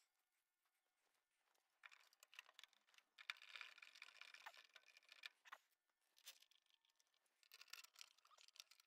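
Near silence, with faint scattered clicks and scraping of gloved hands and a tool handling furnace parts, in two spells: one from about two seconds in, another near the end.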